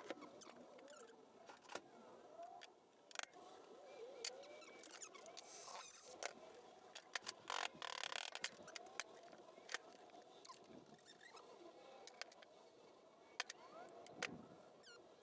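Aerosol spray paint can sprayed in two short hissing bursts, about six and eight seconds in, among light clicks and knocks of handling.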